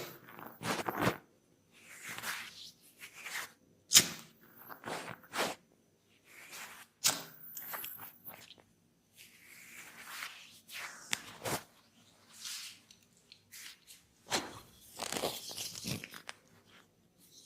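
Close-miked head massage: hands rubbing and scrunching against hair and skin in irregular rustling strokes, with a few sharp clicks.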